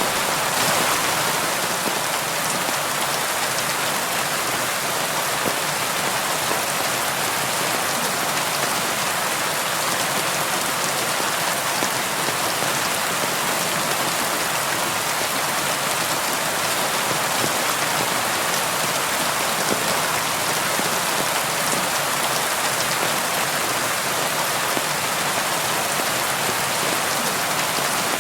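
Steady rain falling on window glass: an even, continuous hiss with scattered individual drop ticks.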